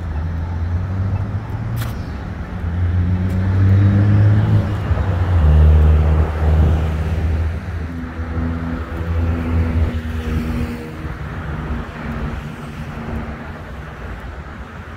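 A car engine running close by and driving past. Its note grows loudest about five seconds in and then fades away, shifting pitch in steps as it goes. There is one sharp click about two seconds in.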